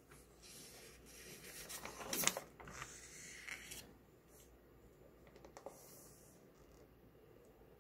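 Glossy magazine paper rustling and sliding as a page is turned and a fold-out poster spread opened, with a sharp crackle a little over two seconds in and a softer rustle near six seconds.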